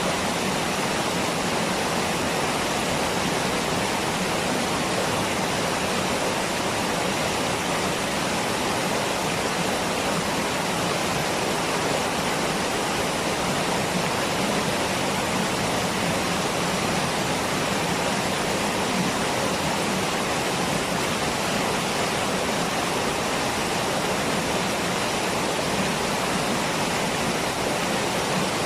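Waterfall: water falling and rushing in a steady, unbroken hiss, with no breaks or changes.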